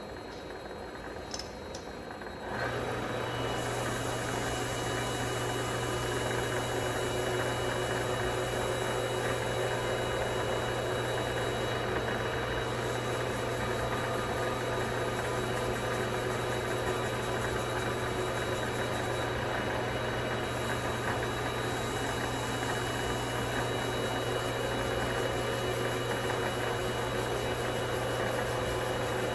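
Vevor MX400 mini lathe starting up about two and a half seconds in and then running steadily, with a hum and a faint high whine, while a Scotch-Brite pad polishes the spinning mild-steel part.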